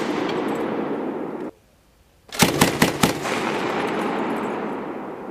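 Mark 19 40mm grenade machine gun firing a burst of about five rounds a little over two seconds in, followed by a long rolling echo that slowly fades. Before it, the echo of an earlier burst cuts off suddenly.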